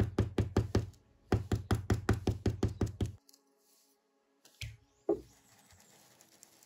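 Round flat-tipped stencil brush (pituá) with white paint being tapped rapidly through a plastic stencil onto painted fabric, about five knocks a second. The tapping pauses briefly about a second in and stops a little after three seconds. Faint background music follows.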